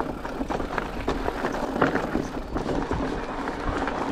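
Mountain bike rolling over a rocky trail: tyres crunching over loose rocks and the bike rattling with many small knocks.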